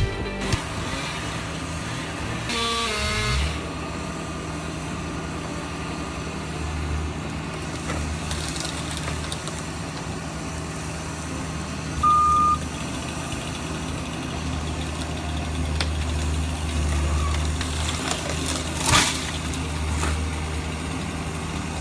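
Diesel engine of a heavy machine, most likely a Cat mini excavator, running steadily. A single short electronic beep comes about 12 seconds in, and a sharp knock near the end stands out as the loudest sound.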